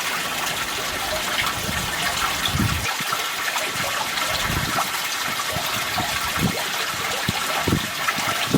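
Koi pond water running and splashing steadily, with a few soft low thumps.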